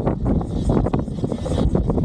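Wind buffeting the microphone: a loud, gusty low rumble.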